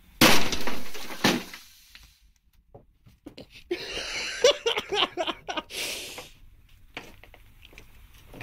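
A rock dropped from a height hits an old CRT television with a loud crash that dies away over about a second, then a second sharp knock; the thrower says he heard the air come out of the set as it deflated. A few seconds later come footsteps and rustling going down concrete steps.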